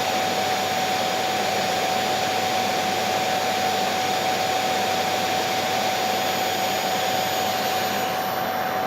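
Vacuum cleaner running steadily, an even rushing noise with a steady high whine.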